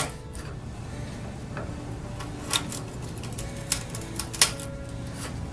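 Steel chisel edge scraping and picking across the grain of a small wooden block, a scattered series of light clicks and scratches as the wood fibres tear.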